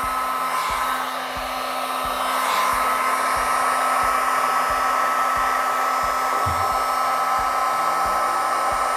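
Electric heat gun running steadily, its fan blowing with a steady whine, heating the heat-shrink crimp connectors on a wire splice.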